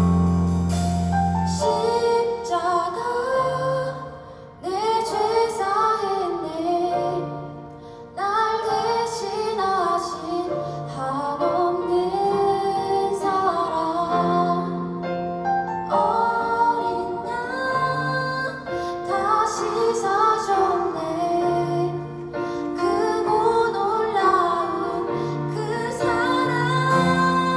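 Women's voices singing a praise-and-worship song live, over piano and bass accompaniment. The singing comes in phrases, with short breaks about four and eight seconds in.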